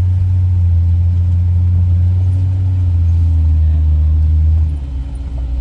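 Car's engine and road noise heard inside the cabin while driving: a steady low drone that eases off and drops in level near the end.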